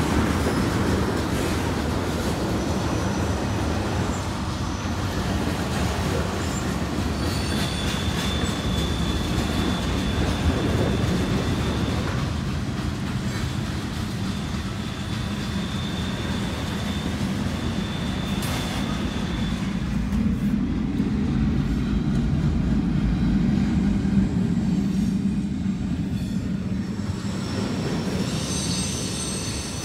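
Freight cars rolling past at a grade crossing: a steady rumble of steel wheels on rail, with a thin high wheel squeal on and off and a stronger squeal near the end as the last cars go by.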